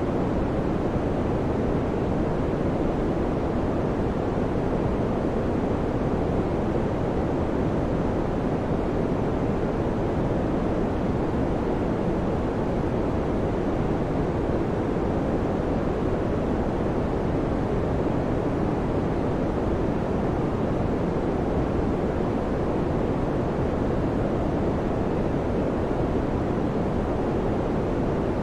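Electric fan running with a steady, even whoosh of moving air, low and muffled in pitch, unchanging throughout.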